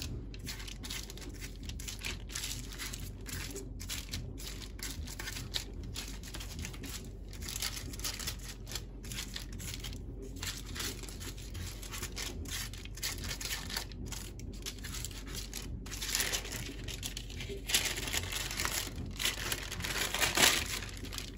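Baking paper rustling and crinkling under hands shaping a ring of soft yeast dough on it, with louder crinkles in the last few seconds as the dough is lifted and the paper is pulled.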